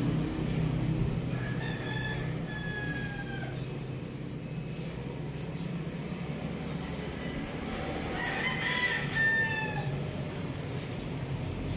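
A rooster crowing twice: one call about a second and a half in, a second about eight seconds in, each lasting about two seconds and falling slightly in pitch at the end, over a low steady background hum.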